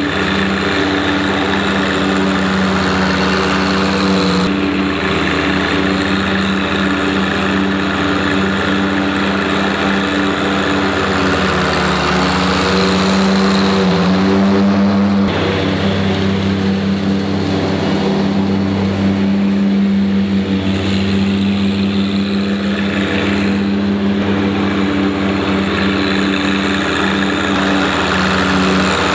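A John Deere 1025R compact tractor's three-cylinder diesel running steadily with its mower deck and leaf-collection blower engaged, a steady hum under a rushing hiss. The sound shifts abruptly twice, a few seconds in and about halfway.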